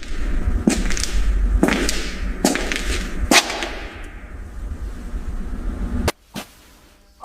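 A series of sharp strikes, four main ones about a second apart, over a low rumble that cuts off about six seconds in, followed by two faint clicks.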